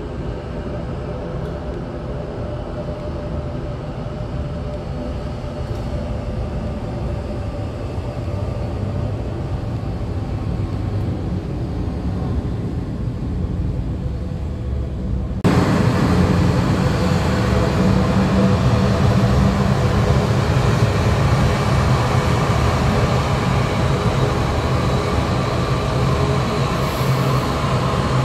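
Jet engine noise from a Boeing 737-800's CFM56-7B turbofans at takeoff thrust during the takeoff roll, a steady noise with a hum of fan tones that slowly grows louder. About halfway through it jumps suddenly louder and fuller as the jet rotates and climbs out.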